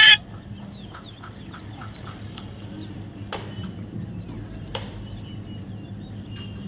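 A parrot's loud, harsh squawk cutting off right at the start, then a quieter stretch of faint chirps and soft ticks over a low steady hum, broken by two sharp clicks about three and a half and five seconds in.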